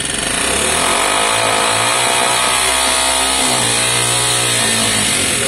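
Lexmoto Valiant motorcycle engine running just after starting on its converted carburettor, the revs rising and then falling back.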